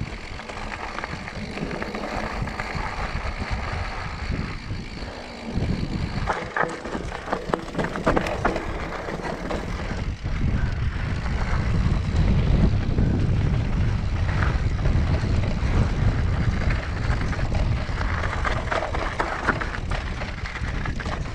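Mountain bike rolling over a rocky dirt singletrack: wind rumbling on the microphone with tyre noise on dirt, and clusters of clattering as the bike rattles over rocks about a third of the way in and again near the end. The wind rumble grows louder from about halfway.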